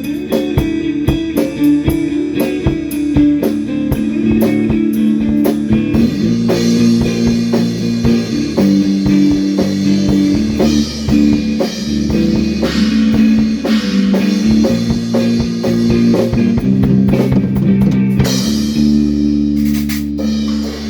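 Instrumental rock jam: guitar over a drum kit, with the cymbals filling in more densely about six seconds in.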